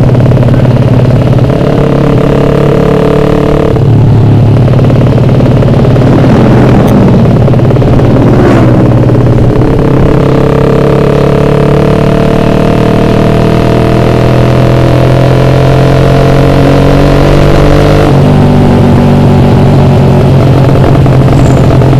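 Suzuki Satria F150's ported 150 cc four-stroke single-cylinder engine running loud through an aftermarket roadrace exhaust while riding. Its note climbs steadily as the bike accelerates, stepping down about four seconds and eighteen seconds in.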